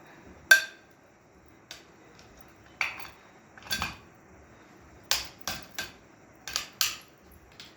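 Sharp metallic clinks and taps, about nine irregular strikes, the first and loudest with a brief ring: tools and metal parts knocking together while a fan is taken apart for repair.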